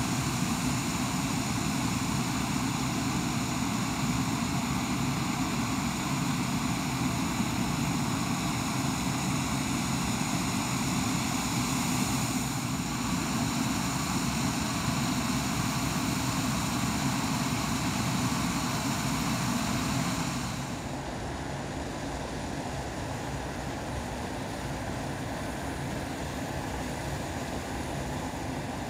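Boeing 727's Pratt & Whitney JT8D turbofan engines running at ground idle, a steady rushing noise with a thin high whine. About twenty seconds in the sound drops to a lower, duller steady rush and the whine fades.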